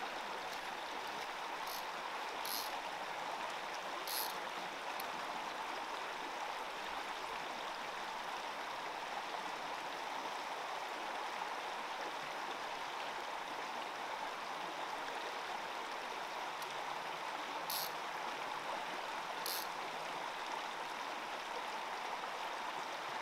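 Small rocky mountain stream running over stones: a steady rush of water, with a few brief high-pitched ticks over it.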